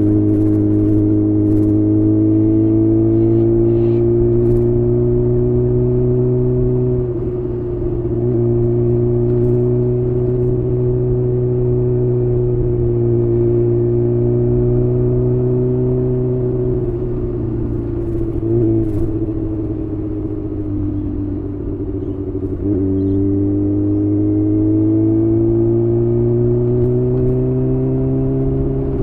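Kawasaki Ninja ZX-6R's inline-four engine through a Leo Vince aftermarket exhaust, heard from the moving bike. The engine note holds fairly steady with gentle rises and falls, breaks briefly about seven seconds in, goes unsettled past the middle, then climbs steadily in pitch from about three-quarters through as the bike accelerates.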